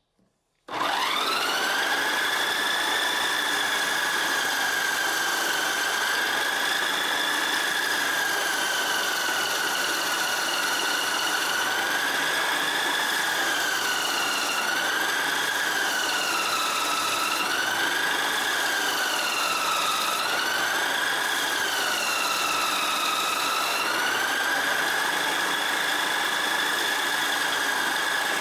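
Homemade disc sander's electric motor switching on and spinning up within a second to a high steady whine, with a rushing grinding noise as a small steel piece is ground against the sandpaper disc. Midway the whine sags in pitch and recovers several times, the motor slowing as the steel is pressed harder against the disc.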